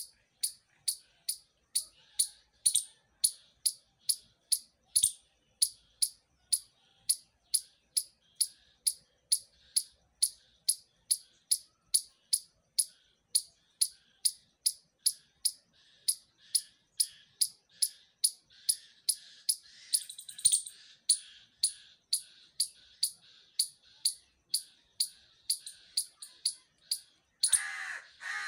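A squirrel calling: a sharp, high chirp repeated steadily about twice a second. A louder, harsher call cuts in near the end.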